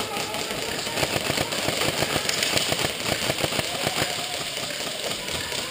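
Airsoft electric rifle firing full-auto, a fast steady rattle of shots that quickly empties a magazine.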